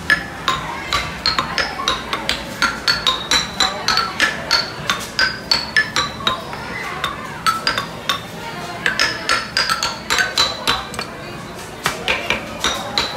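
A quick run of sharp, ringing clinks and taps from hard objects being struck, about three or four a second, with short ringing tones at varying pitches. The run pauses briefly twice, once past the middle and once near the end.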